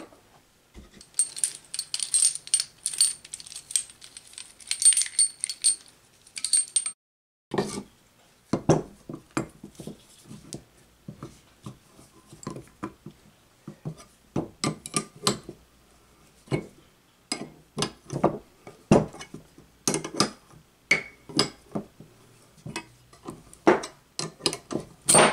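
Steel bearing-puller jaws jangling and clinking as the puller is handled and fitted, for the first six seconds or so. After a short pause comes a long run of irregular sharp metal clicks and knocks as the puller's screw is turned with a wrench to draw the ball bearing off the electric motor's rotor shaft.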